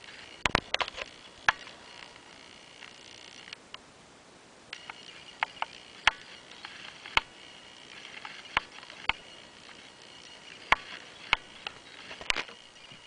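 Handling noise close to the microphone: about a dozen irregular sharp clicks and taps over a faint breathy hiss.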